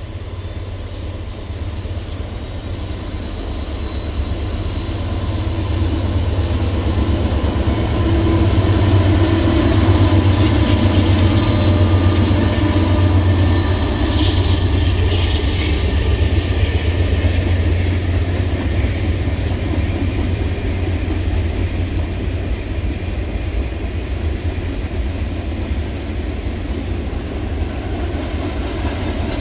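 Mixed freight train's cars rolling across a steel-decked rail bridge: a continuous heavy rumble of wheels on the rails, growing louder over the first ten seconds and then holding steady.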